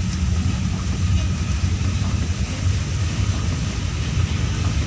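Car driving on a wet road, heard from inside the cabin: a steady low engine and road rumble with an even hiss over it.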